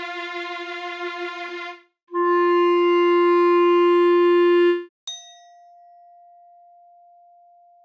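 A violin note with vibrato ends about two seconds in. A clarinet then holds the same pitch for about three seconds, a steady, hollow tone strong in the lower odd harmonics. About five seconds in, a single glockenspiel strike follows: its bright overtones decay quickly while a softer fundamental rings on and fades.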